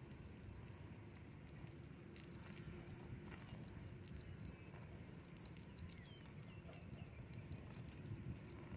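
Cow grazing up close: faint crisp tearing and crunching as it crops and chews the grass, in scattered short clusters over a low steady rumble.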